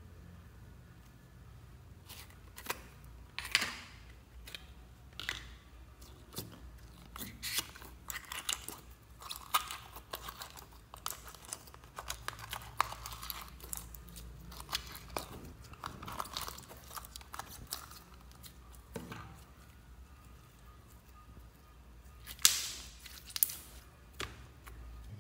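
Clear glitter slime being pulled out of its jar and stretched by hand: irregular sticky crackles, clicks and squelches, with a louder pair of clicks near the end.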